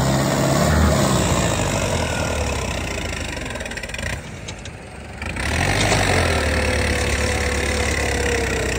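Turbocharged Mahindra 585 tractor's diesel engine running steadily, dropping away about four seconds in and coming back a second later, with a thin whistle slowly falling in pitch near the end.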